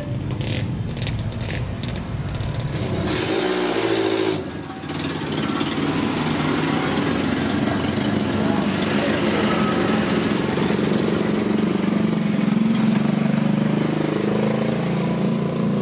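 Road vehicle engines running and passing, with a brief rising engine burst about three to four seconds in, then steady traffic noise.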